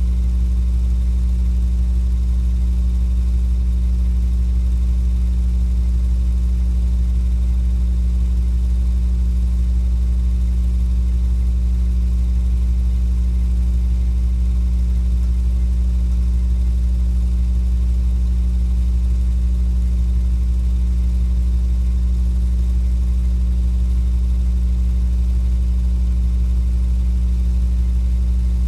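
A steady, unchanging low hum with no other sound.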